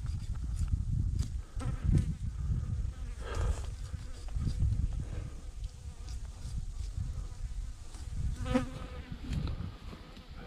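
A fly buzzing in short passes, a few times, over a steady low rumble that is the loudest sound throughout.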